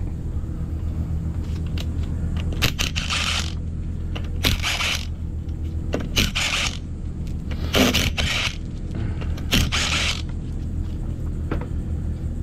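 Cordless impact driver run in five short bursts of about half a second each, spinning off the nuts that hold a power wheelchair's drive wheel to its hub, over a steady low hum.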